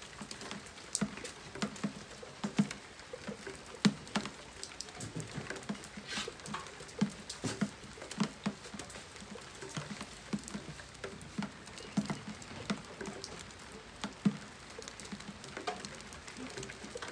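Rain pattering, with drops tapping irregularly on a surface close to the microphone, several a second and a few louder than the rest.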